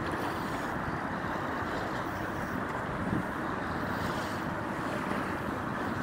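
Steady wind noise buffeting the microphone, over small waves lapping in shallow seawater.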